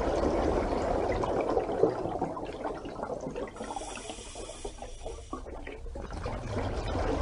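Running water, a dense uneven churning that eases in the middle and builds again near the end.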